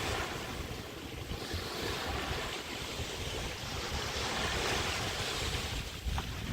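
Waves washing onto a bay beach, the wash swelling through the middle, with wind buffeting the microphone.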